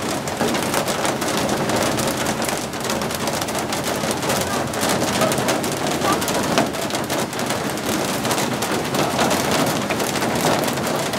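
Heavy rain mixed with hail: a steady hiss of downpour with a dense, fast rattle of hailstones striking hard surfaces.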